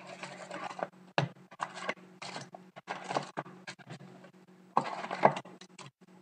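Cardboard hockey card box being forced open by hand: a run of irregular tearing and scraping sounds, the loudest rips about five seconds in.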